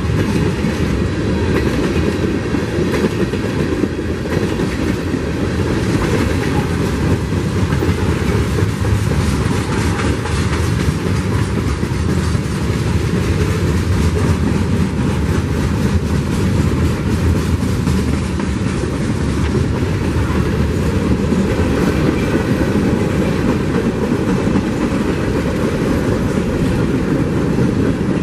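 Freight train of tank cars, covered hoppers and boxcars rolling past at a steady speed: continuous wheel-on-rail rumble with the clickety-clack of wheels passing over rail joints.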